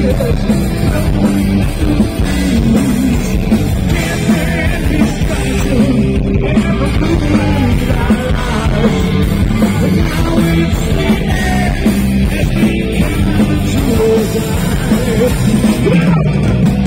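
Heavy metal band playing live: distorted electric guitars, bass and drum kit with a male lead vocal, loud and continuous, with fans singing along.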